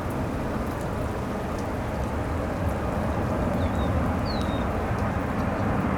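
Wind buffeting the microphone over steady rain noise, with a few short high chirps about four seconds in.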